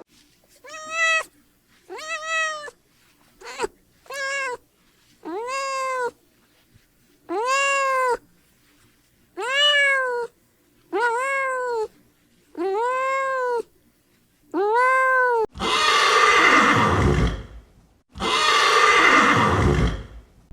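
An animal calling over and over: about ten short calls that rise and fall in pitch, about a second apart, then two longer, harsher and louder calls near the end.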